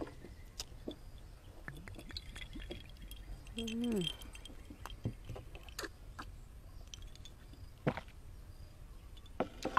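Mouth sounds of a person chewing shrimp, with soft wet clicks throughout and a short hummed "mm" with falling pitch about three and a half seconds in.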